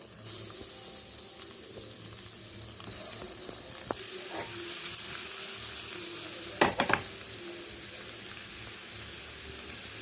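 Masala-coated paneer cubes sizzling as they fry in hot oil in a pan; the hiss swells about a third of a second in and again near three seconds in. A few light clicks and knocks, around four seconds and near seven seconds in.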